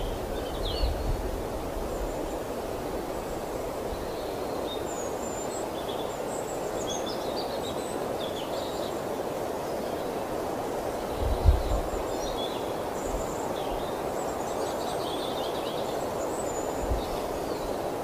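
Wild birds giving scattered short, high chirps and trills over a steady rushing background of outdoor noise. A brief low thump comes about eleven seconds in.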